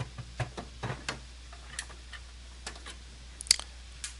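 Small irregular clicks and ticks of a screwdriver backing a motherboard screw out of a computer case, with a sharper click about three and a half seconds in.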